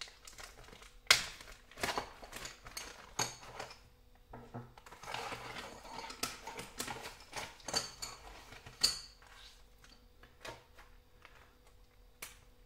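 A plastic zip-lock bag crinkling as it is opened and emptied, and carbon-fibre drone frame plates clacking as they are set down on a wooden table: a string of sharp clicks and knocks, the loudest about a second in and again near nine seconds.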